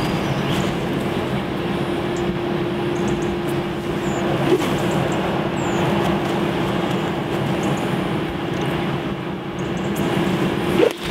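A motor's steady drone: one constant tone over a wash of noise, with a single short knock about four and a half seconds in.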